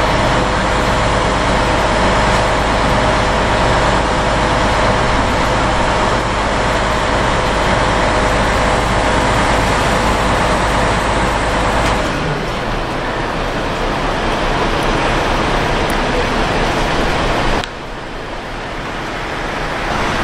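Kato mobile crane's engine running loud and steady under load as it hoists a railcar. About twelve seconds in the deep hum changes, and the level drops suddenly near the end as the engine eases off.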